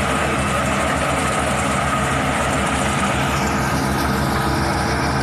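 Engine of a rice harvesting machine running steadily with an even, fast low throb.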